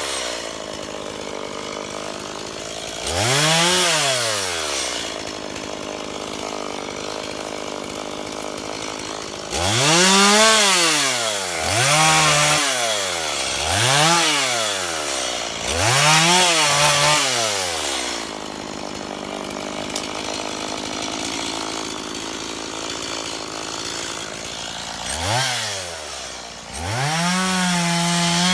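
Chainsaw engine idling and being revved up and let back down about seven times in short throttle blips, each a rising then falling whine. The last rev is held at high speed near the end.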